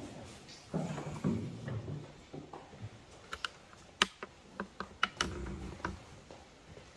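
Scattered sharp clicks and knocks with soft rustling, from people moving about in a quiet church. There is a rustle and low rumble about a second in, then a run of sharp clicks between about three and six seconds in.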